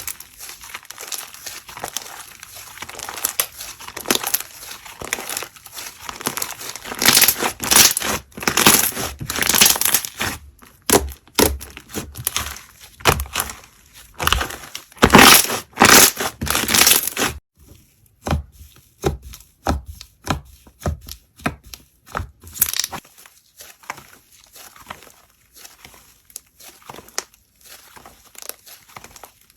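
Slime being squeezed and worked by hand, giving irregular crackles and pops. The crackling is dense and loud through the first half, then thins out to sparser, quieter clicks.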